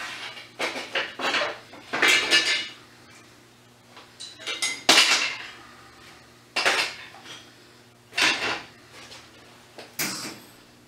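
Steel pieces clanking and scraping against a steel welding table and jig, in about six short bursts a second or two apart.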